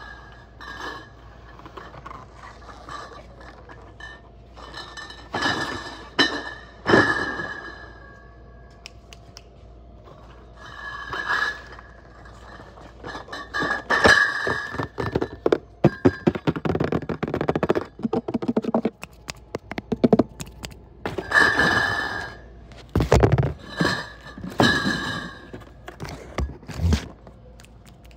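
Cardboard cases of bottled beer being lifted, slid and set down on a stack: irregular thunks and scrapes of cardboard against cardboard, with the glass bottles clinking inside. The busiest stretch falls in the middle and later part.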